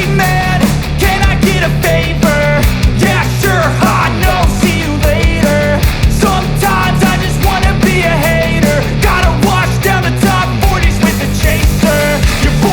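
Loud rock background music with a steady drum beat.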